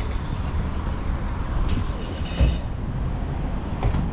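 Street background noise: a steady low rumble of traffic, with a few brief knocks and clicks around the middle and again near the end.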